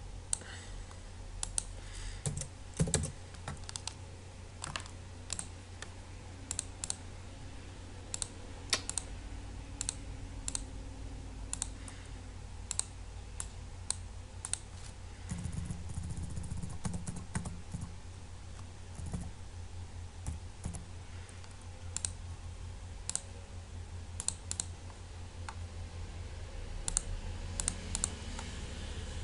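Irregular, scattered taps and clicks of a computer keyboard and mouse, over a low steady hum.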